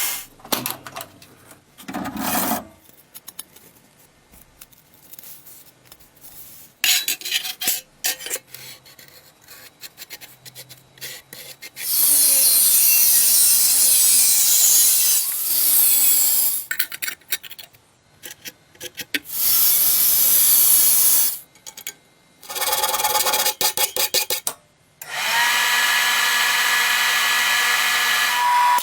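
Tool work on a rusty old knife. First come stretches of scraping and rubbing with scattered clicks. Then, from about twelve seconds in, come four loud bursts of a power tool, the last one with a steady whine that runs on.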